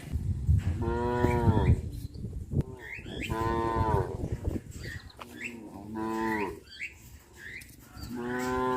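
Cows mooing: four long, drawn-out moos about two seconds apart, over a low rumble. The last moo runs on past the end.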